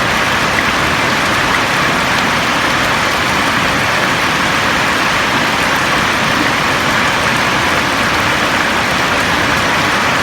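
Steady rain falling on a roof: an even, unbroken hiss with no single drops standing out.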